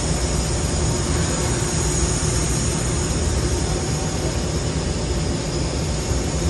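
Steady industrial machinery noise: a low rumble under a constant high-pitched hiss, unchanging throughout.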